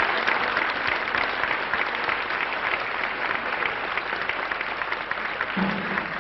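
Audience applauding; the clapping slowly dies down.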